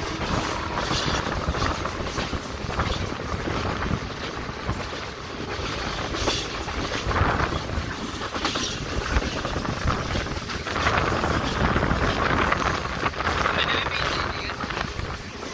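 Passenger train running along the track: a steady rumble and rush of noise with scattered knocks from the wheels and carriages, growing louder about eleven seconds in.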